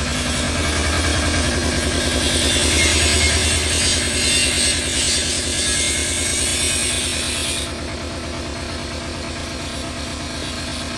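A steady, low, pulsing mechanical hum, like an engine idling, under a hiss of water. The hiss drops away suddenly about two-thirds of the way through.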